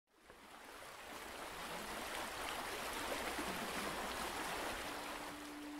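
A steady rush of water, like surf or a stream, fading in over the first second. A sustained low music note comes in near the end.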